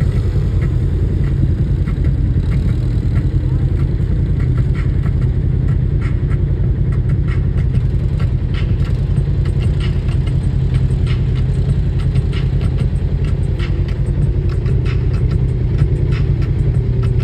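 Off-road vehicle's engine running steadily at low revs, a deep even rumble with no revving. Light clicks and rattles are scattered over it.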